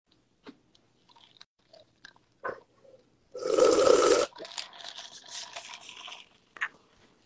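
Close handling noise right at the phone's microphone: scattered soft clicks and crackles, then a loud rustling scrape lasting about a second, starting about three and a half seconds in, followed by quieter rustling and clicks.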